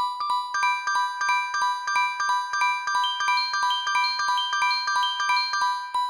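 Synthesized MIDI rendition of an Android 10 ringtone: a fast, repeating figure of bell-like mallet notes, about three a second, over one repeated high note, with the upper notes shifting to new pitches a couple of times.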